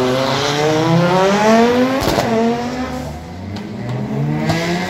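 Audi S1 Quattro rally car's turbocharged five-cylinder engine revving hard as it drives past, rising in pitch for about two seconds, then a sharp crack and the pitch falling away, before revving up again near the end.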